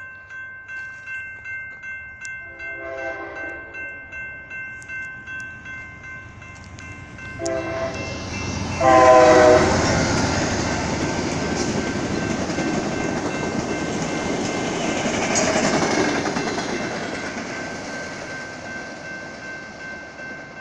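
A grade-crossing bell dings steadily while an approaching Amtrak Talgo passenger train sounds its multi-note horn three times, the last blast as it reaches the crossing. The train then rushes past with a loud rolling noise that swells again as its rear passes and fades away near the end.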